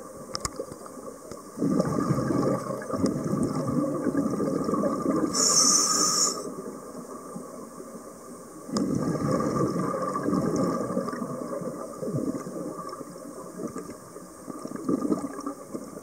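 Scuba diver breathing through a regulator underwater: two long bursts of exhaled bubbles, a short hiss of inhalation between them, and another bubble burst starting near the end.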